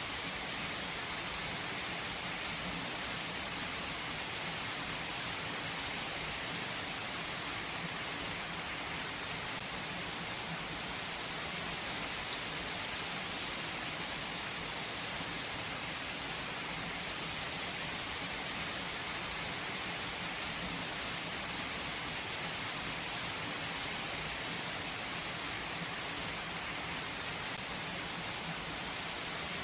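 Steady rain falling on surfaces, an even hiss with many fine drop ticks, unchanging throughout.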